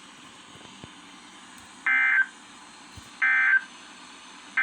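NOAA Weather Radio SAME end-of-message data bursts: three short, identical bursts of warbling two-tone digital data, a little over a second apart, the last one right at the end, over faint radio hiss. They mark the close of a required weekly test broadcast.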